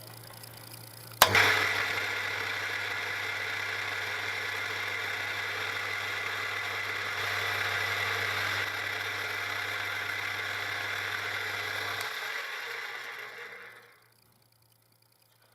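Milling machine switched on with a sharp click about a second in, its motor and spindle then running steadily with a low hum and a hiss while machining an aluminium part. It is switched off about twelve seconds in and winds down to silence over the next two seconds.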